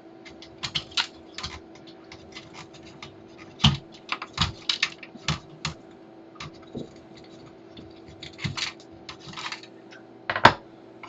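Irregular light clicks and taps of small parts and tools being handled on a workbench, the loudest near the end, over a steady electrical hum.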